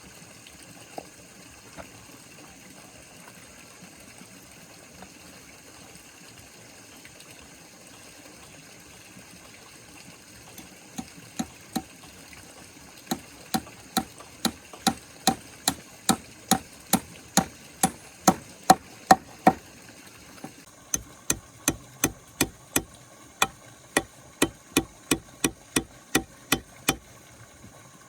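Hammer blows on wood, struck steadily at about two a second in two long runs with a short break between them, after a few scattered knocks.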